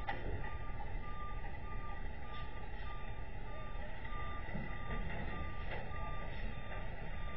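Backup alarm of a box truck beeping repeatedly as the truck reverses, over a steady low rumble.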